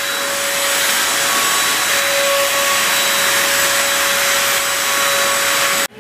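Vacuum cleaner running with its crevice nozzle drawn along a sliding window track: a steady rush of suction with a constant whine. It cuts off abruptly near the end.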